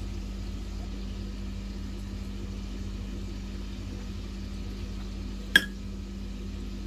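Steady low hum of background noise, with a single sharp click about five and a half seconds in.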